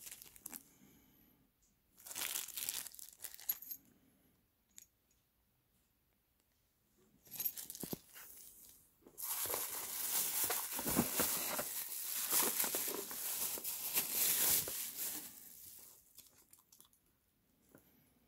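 Clear plastic bag crinkling and rustling as a rotary tool is unwrapped from it by hand, in three bouts, the last and loudest lasting about six seconds.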